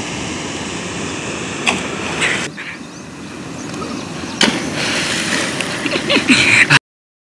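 Rushing, churning canal water, with a splash about four and a half seconds in as a swimmer flips into it. The sound cuts off suddenly near the end.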